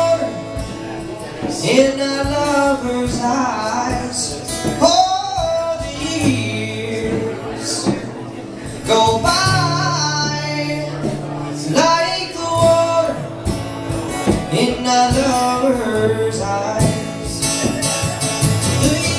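Live song: singing over plucked guitar accompaniment with held low bass notes.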